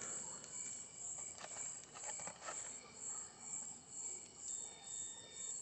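Faint cricket chirping, about two chirps a second, with a few light clicks in the first half.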